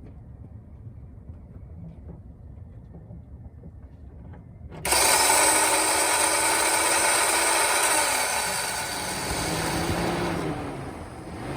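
Starter motor of a 2006 Acura TSX whirring and screeching, starting suddenly about five seconds in, while the engine is not turned over. This is the sign of a bad starter that spins without cranking the engine. The sound shifts in pitch partway through and dips briefly near the end.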